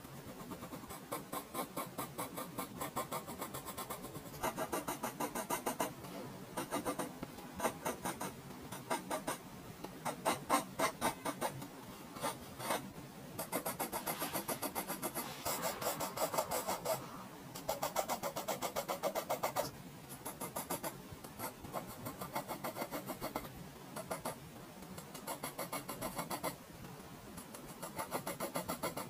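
Graphite pencil scratching across drawing paper in quick repeated hatching strokes. The strokes come in bursts of a few seconds, broken by short pauses as the pencil lifts.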